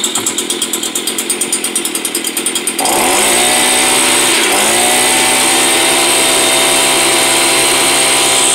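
Stihl BG 86 leaf blower's small two-stroke engine running, unevenly at first, then throttled up about three seconds in: the revs climb, stumble once and hold steady. The mechanic says it starts fine but won't rev up or develop power when the throttle is opened.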